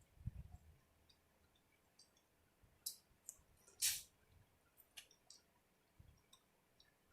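Faint, close-miked eating sounds of corn on the cob being bitten and chewed: scattered crisp clicks and wet smacks, with the loudest crackle about four seconds in and a few soft low thuds.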